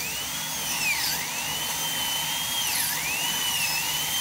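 High-speed dental handpiece with a round bur whining as it cuts the distal pit of a model premolar tooth. The whine sags sharply in pitch twice as the bur bites under load, then climbs back.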